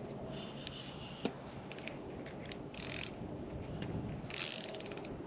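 Close handling noises: scattered light clicks and two short rustling scrapes, one about three seconds in and one near the end with a quick run of clicks.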